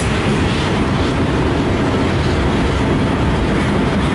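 CN freight train cars rolling past, a steady loud rumble and clatter of steel wheels on the rails.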